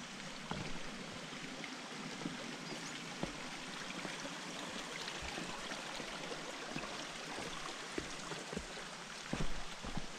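Small forest creek running steadily, with a few footsteps on the dirt trail, more of them near the end.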